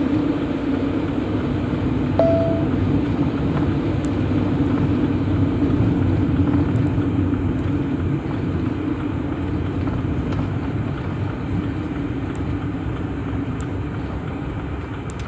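A vehicle driving steadily, with a constant engine drone and road noise. A short single beep sounds about two seconds in.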